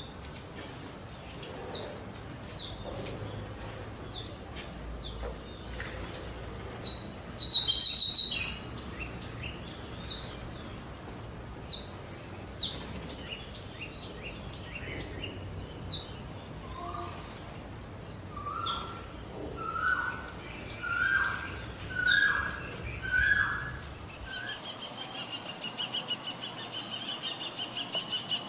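Forest birds calling and singing: scattered short chirps, one loud harsh call about a quarter of the way in, then a run of six short notes, each a little higher and louder than the last. Near the end a steady high trill takes over.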